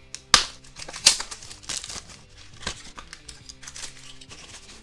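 Foil blind-bag packet crinkling and tearing as it is handled and torn open, in irregular sharp crackles, the loudest about a third of a second in and again at about a second. Soft background music runs underneath.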